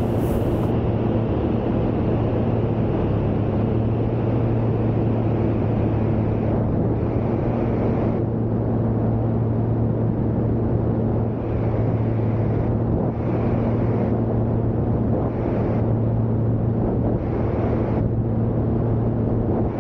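Steady drone of a Van's RV light aircraft's piston engine and propeller in cruise flight, one unchanging pitch.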